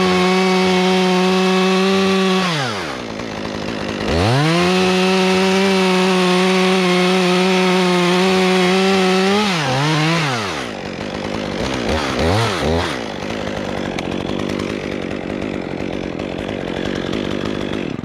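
Chainsaw cutting the face cut into a pin oak stem at full throttle. It eases off and comes back up about three seconds in, runs flat out again, is throttled up and down a few times near the middle, then runs on more quietly.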